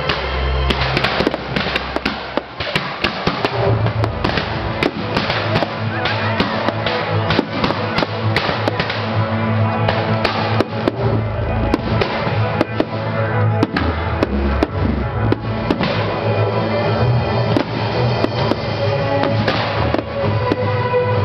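Fireworks display: many shells and crackling effects bursting in quick succession, over music playing throughout.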